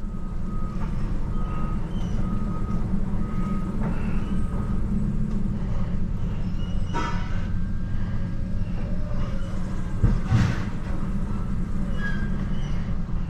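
Steady low rumble of a pickup truck running, with the vehicle's electronic warning chime beeping four times in the first few seconds and a single knock about ten seconds in.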